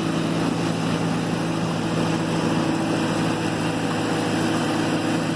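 Engine of heavy construction machinery working a parking lot (compaction and backfilling), running steadily with a constant low hum.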